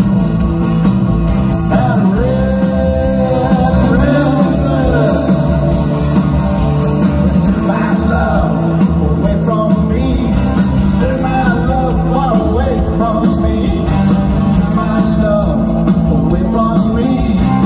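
Live rock band playing a song with acoustic and electric guitars, bass and drums, and a lead singer's voice over them.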